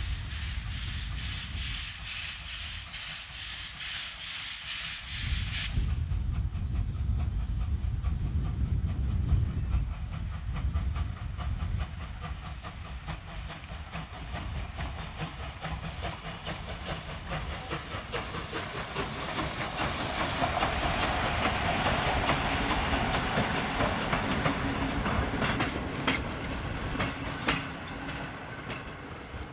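Ol49 2-6-2 steam locomotive hauling a passenger train past. Its exhaust beats and steam hiss swell to their loudest about two-thirds of the way in, then the carriage wheels click over rail joints near the end. Wind rumbles on the microphone throughout.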